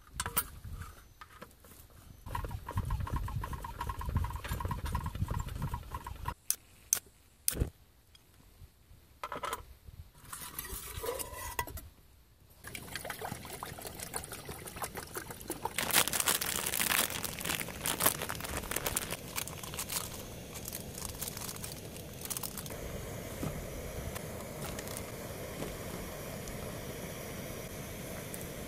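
Ramen being cooked on a small gas canister camping stove: a few sharp clicks and clinks, then the burner's steady hiss under a camping pot, with a louder crackly stretch about halfway and liquid and pot sounds as the noodles are stirred with chopsticks near the end.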